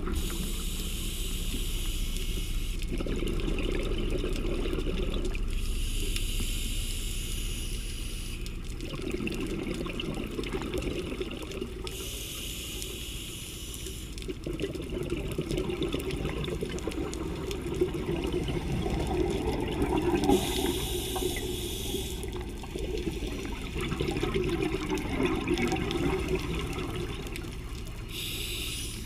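Scuba diver's regulator breathing underwater: a hiss on each inhalation alternates with a burst of bubbling on each exhalation, about five slow breath cycles.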